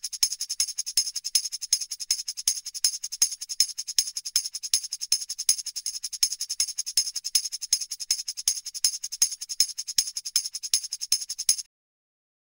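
Tambourine jingles shaken in a steady rhythm, with accented strokes about two or three times a second and lighter shakes between, stopping abruptly near the end.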